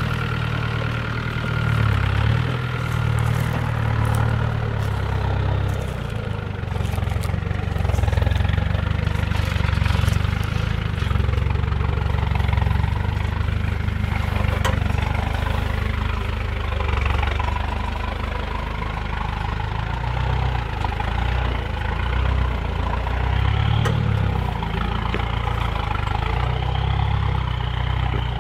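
Land Rover 110 County's V8 engine running at low revs while crawling up a steep rutted off-road climb, the engine note swelling and easing every few seconds as the throttle is worked.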